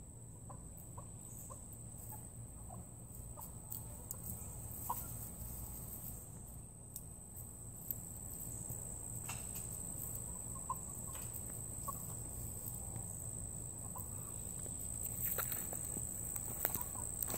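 Chickens clucking softly now and then, over a steady high-pitched insect drone. Footsteps in grass near the end.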